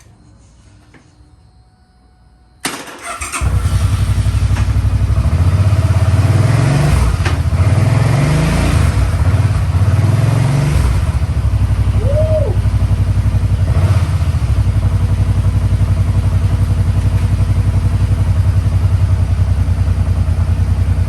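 Suzuki Boulevard C50's V-twin engine started a few seconds in, revved three times, then idling steadily.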